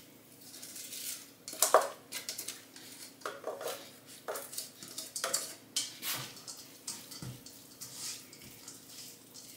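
Spatula scraping chopped onion out of a bowl into a wok and stirring it in the pan: irregular clinks and scrapes of the utensil against bowl and pan. The sharpest knock comes about two seconds in.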